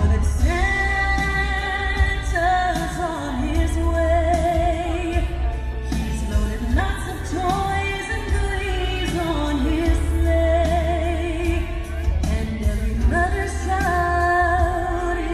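Holiday show soundtrack: a singer holding long notes with vibrato over a band with a heavy bass.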